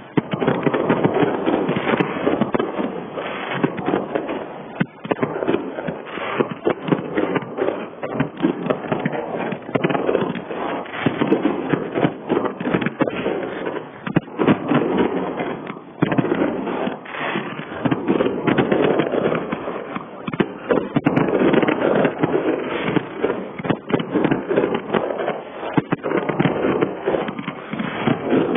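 Aerial fireworks going off in a dense, continuous barrage: shell bursts and crackling follow one another with no real pause.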